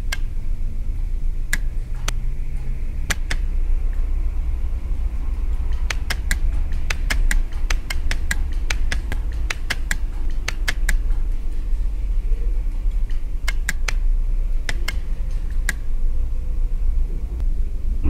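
Electromechanical relays clicking irregularly as they switch the Blinkenlights installation's lamps on and off, sometimes singly and sometimes in quick runs of several clicks, over a steady low hum.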